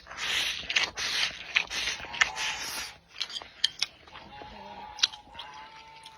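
Close-miked eating sounds: wet chewing and mouth noises, busiest in the first three seconds, with scattered sharp clicks, then quieter.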